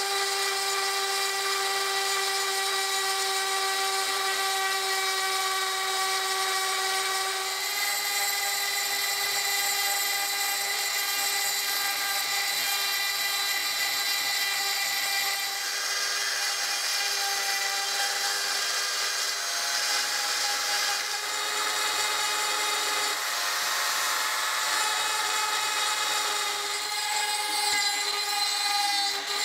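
Handheld rotary multitool spinning a fine pointed burr at high speed: a steady high whine with scratchy grinding as the burr scours rust off the corroded iron of an ancient axe blade. The pitch shifts slightly about seven seconds in.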